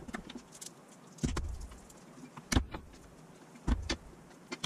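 Kitchen knife chopping garlic cloves on a wooden cutting board: about half a dozen separate knocks of the blade against the board, roughly a second apart.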